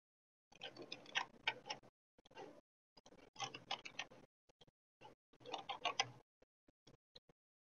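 Faint clicking of a computer mouse and keyboard. There are scattered single clicks and four quick clattering runs of clicks, the longest about a second and a half.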